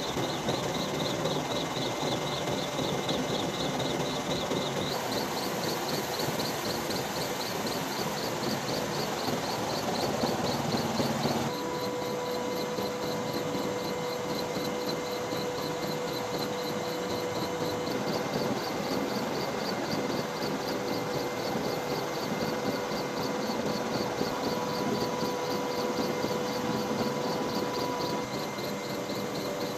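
Steady rotor and engine noise of an aircraft filming from above, with a fast, even high flutter and a few steady hum tones. The sound changes abruptly about 5 and 11 seconds in.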